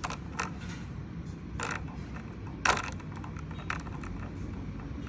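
Plastic toy playground creaking and clicking as its swing is worked round by hand, with a handful of sharp separate clicks, the loudest a little past halfway.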